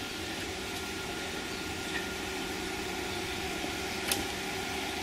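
BMW GINA concept car running at a steady idle, an even mechanical hum with noise, with one sharp click about four seconds in.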